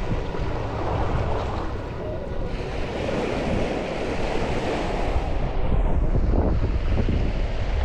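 Sea surf washing on a beach, with wind buffeting the microphone in a heavy low rumble.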